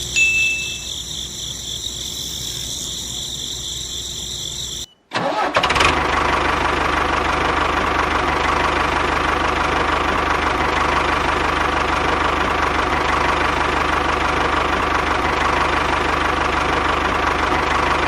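Tractor engine running steadily while working a field. There is a short break about five seconds in, after which it is louder and steady.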